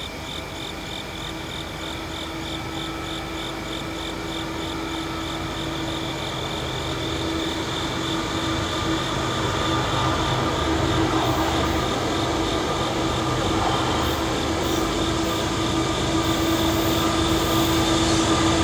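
A diesel-hauled train approaching, growing steadily louder, with a steady hum and one held tone underneath. Insects chirp in the background in a fast pulse of about three a second, fading under the train's noise.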